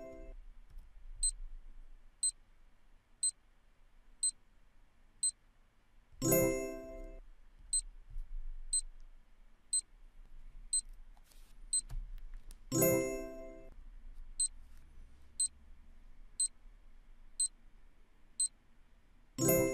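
Quiz countdown-timer sound effect: a sharp clock-like tick once a second, five ticks between each chime. A bright ringing chime sounds three times, about six and a half seconds apart, as the timer runs out and the answer is revealed.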